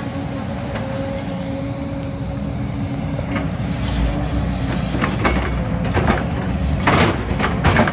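Excavator's diesel engine running steadily. From about five seconds in it is joined by a run of sharp knocks and clatter, loudest about seven seconds in.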